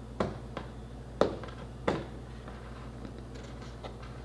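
Hands handling a cardboard keyboard box on a desk: four sharp taps and knocks in the first two seconds, then only faint ticks as a fingernail works at the box's sticker.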